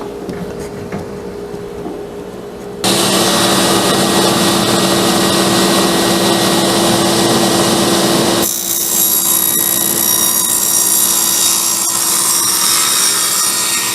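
Electric power saw cutting a bevel along the edge of a wooden board: a steady motor hum, then about three seconds in a sudden, much louder cutting noise that turns hissier about halfway through.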